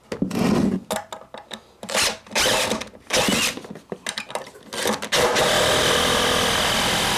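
Cordless drill run in several short stop-start bursts, then held on steadily for the last couple of seconds.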